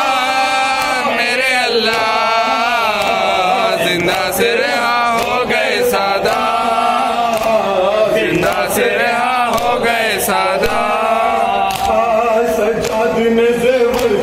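Male voices chanting an Urdu noha, a Shia lament, with crowd voices joining. Sharp slaps of hands striking bare chests (matam) are scattered through the chant.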